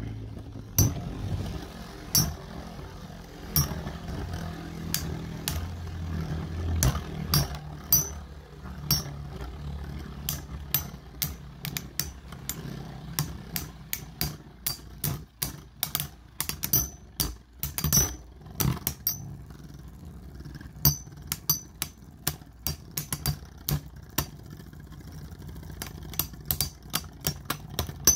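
Two Beyblade spinning tops (Rock Leon and Samurai Ifrit) whirring in a plastic stadium and clacking against each other again and again. The low whir is strongest over the first several seconds, and the sharp clacks come thicker and faster in the second half.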